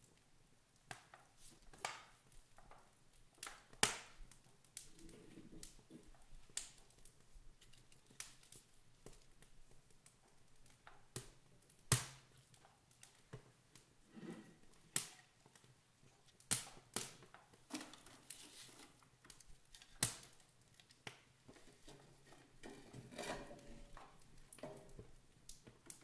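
Wood fire crackling in an open wood stove, with irregular sharp pops and snaps, a few much louder than the rest. Softer knocking and rustling of split logs being shifted by hand.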